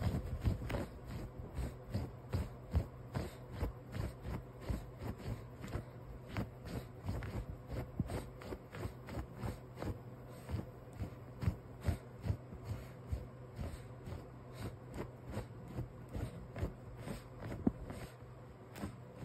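Pomeranian puppy pawing and scratching at a bed blanket: a long run of short, soft scuffing strokes, about two or three a second, over a faint steady hum.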